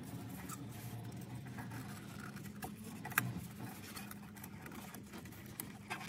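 Faint handling sounds of gloved hands working a new rubber O-ring onto a plastic oil filter cap. A few small clicks come through, the sharpest about three seconds in, over a steady low hum.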